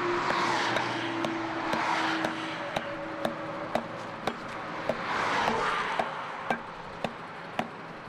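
Hand tamper's flat steel plate striking fresh cold asphalt patch in a pothole, short knocks about twice a second, compacting the repair. Motorway traffic rushes past in swells near the start and about five seconds in.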